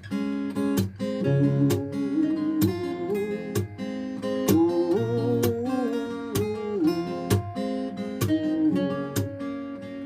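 Martin and Yeoul acoustic guitars playing an instrumental passage: chords strummed in a steady rhythm under a picked lead melody that slides and wavers in pitch.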